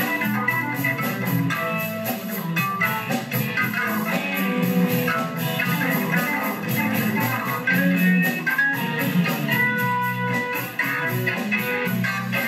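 Live band music: electric guitar to the fore over keyboards and drums keeping a steady beat, playing a honky-tonk number.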